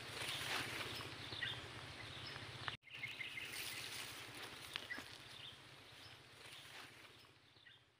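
Faint outdoor ambience: a steady hiss with scattered short bird chirps and a few small clicks. It cuts out for an instant about three seconds in, then fades out near the end.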